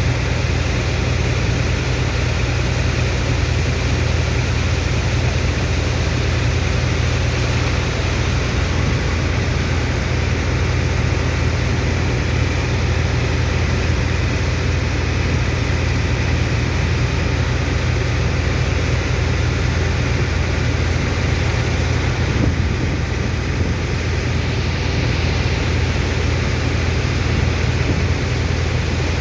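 Engine of a sand-dredging water pump running steadily: a loud, constant low drone with a noisy hiss over it.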